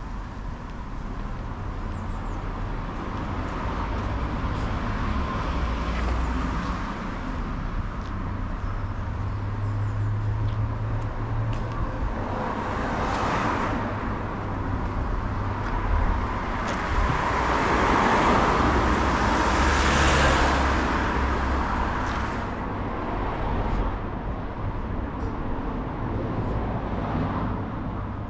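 Road traffic: a steady low rumble with cars passing, one swelling and fading near the middle and a longer, louder pass soon after.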